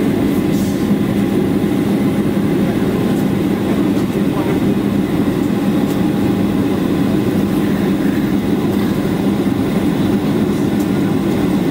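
Steady cabin drone of a Boeing 737-800 in flight, heard from a passenger seat: engine and airflow noise from its CFM56-7B turbofans, with a steady low hum running through it.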